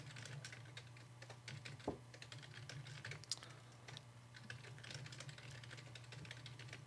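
Typing on a computer keyboard: quick runs of key clicks with short pauses, and one harder keystroke about two seconds in, over a low steady hum.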